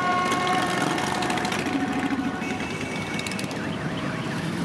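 Many motorcycle engines running together in a dense rumble as a column of motorcycles rides slowly past, with a few long held high tones over it in the first half.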